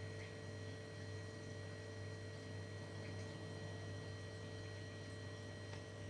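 Steady low electrical hum with faint background hiss and no distinct event.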